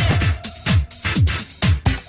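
1990s techno track: a steady kick drum at about two beats a second, with the synth melody dropped out for a few bars so mostly drums are heard.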